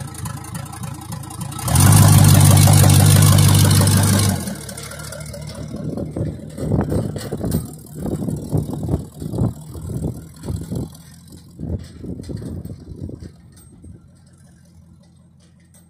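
1957 GMC pickup's V8 engine revved loudly for about three seconds close by. The truck then pulls away across rough ground, its engine coming in uneven surges that grow fainter as it goes.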